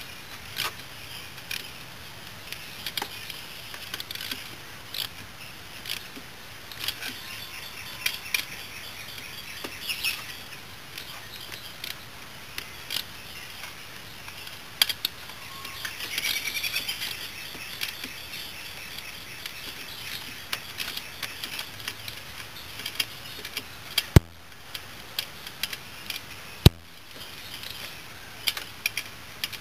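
Intermittent metal clicks of a ratchet wrench snugging down the cylinder head bolts on a Yamaha Badger YFM80 engine, with two sharper metal knocks a couple of seconds apart near the end. Birds chirp faintly about halfway through.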